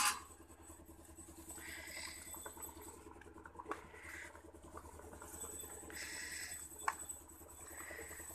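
Hot oil sizzling faintly in a kadhai as sattu-stuffed puris fry, the hiss swelling and fading in patches. A sharp click comes at the start, and there are a few light knocks.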